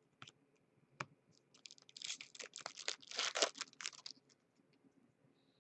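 Foil trading card pack wrapper crinkling and tearing open, a run of crackling about two and a half seconds long, after a single click about a second in.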